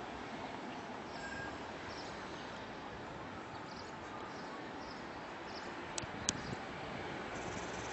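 Steady outdoor background noise with faint, scattered high chirps, and two sharp clicks about six seconds in.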